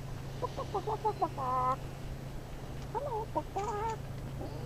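Hens clucking: a quick run of short clucks that ends in a drawn-out bawk, heard twice.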